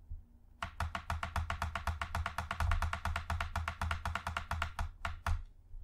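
Computer mouse button clicked rapidly and evenly, several clicks a second, for about four seconds, ending with two separate clicks.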